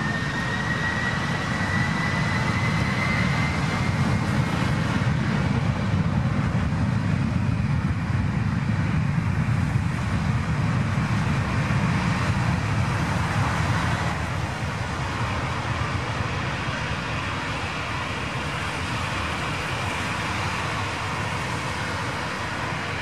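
Business jet's twin rear-mounted Rolls-Royce BR710 turbofans spooling up to takeoff thrust: a rising whine over the first few seconds, then a loud, steady jet roar on the takeoff roll that eases a little after about 14 seconds.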